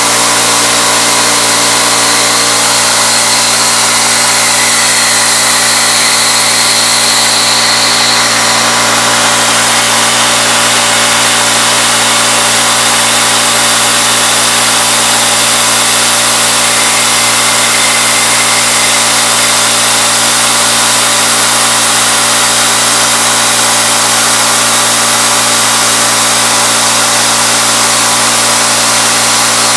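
Bridgeport knee mill's spindle running at 2200 RPM with a 3/8-inch end mill cutting aluminum, a steady machining din. A high whine comes up for a few seconds about five seconds in, and again near the middle.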